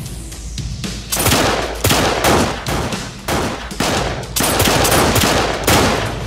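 Handguns firing repeatedly in quick succession: many sharp shots, each with a short ringing tail, starting about a second in.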